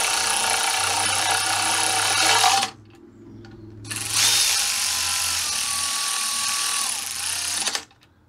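Cordless power ratchet running bolts into an adapter plate on the engine, in two runs: one that stops about two and a half seconds in, then after a short pause a longer one of nearly four seconds that cuts off sharply near the end.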